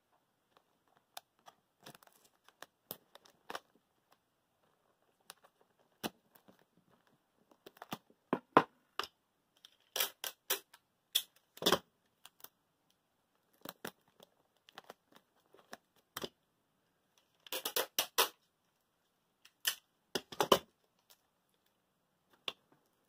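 Scattered sharp clicks and crinkles of clear tape and plastic sheeting being handled on a box, in clusters with quiet gaps; the busiest stretches come a little before the middle and again toward the end.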